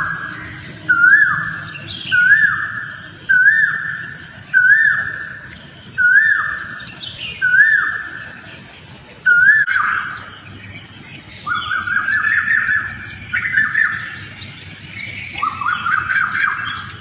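Birds chirping in the early morning. One bird repeats the same short call about once a second, and about halfway through it gives way to busier, more varied chirping, with a steady high-pitched buzz behind the first half.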